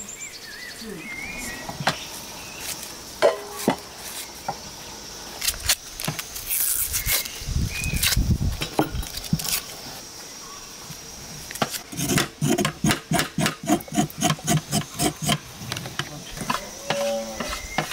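Kitchen knife cutting a red onion, then scraping the skin off a carrot in a regular run of quick strokes, about three a second, for several seconds. Birds chirp now and then over a faint steady insect hum.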